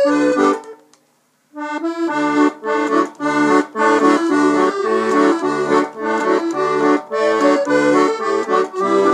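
Galanti piano accordion playing. A chord dies away within the first second, there is a brief pause, and then a rhythmic riff starts, with the right-hand keyboard melody over left-hand bass-button chords.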